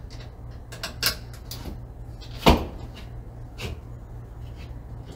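A few scattered knocks and clicks from a bus bar and heavy battery cables being handled against the wall, the loudest about two and a half seconds in, over a steady low hum.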